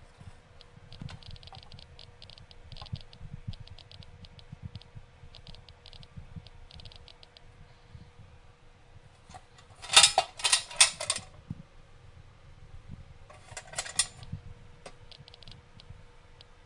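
CDV-700 Geiger counter clicking. Scattered single clicks for the first several seconds, then two dense runs of rapid clicks about ten and fourteen seconds in, as the count rate jumps while the probe is moved. A faint steady hum runs underneath.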